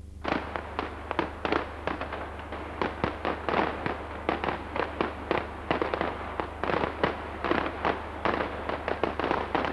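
Fireworks going off in quick, irregular succession: many sharp bangs and cracks, several a second, from an aerial pyrotechnic display.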